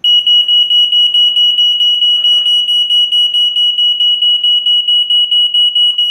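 Smoke alarm sounding on its test button: a loud, high-pitched tone that starts abruptly and flutters about five times a second.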